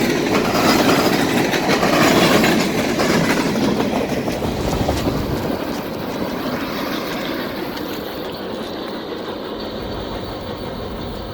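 Norfolk Southern freight train rolling past, its wheels clattering over the rails. The noise slowly fades as the train moves away, losing its hiss after about seven seconds.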